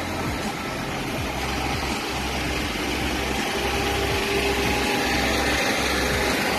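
Heavy truck engine idling with a steady low rumble, over a haze of street noise.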